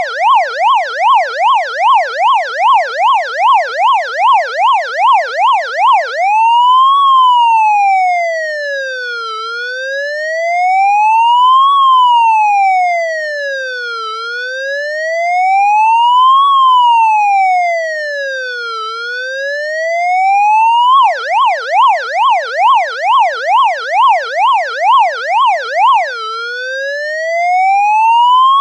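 Electronic police siren alternating between its two patterns: a fast yelp sweeping up and down about three times a second, switching about six seconds in to a slow wail that rises and falls every four to five seconds, back to the yelp about 21 seconds in, and to the wail again near the end.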